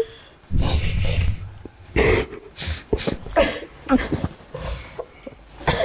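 A woman crying: sharp sniffles and heavy shaky breaths, with a few short broken sobs.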